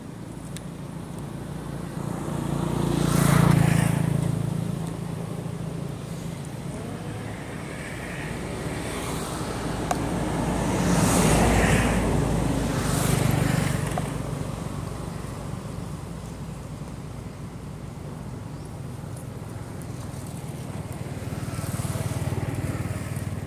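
Motor vehicles passing on a nearby road: the traffic sound swells and fades about three times over a steady low engine hum.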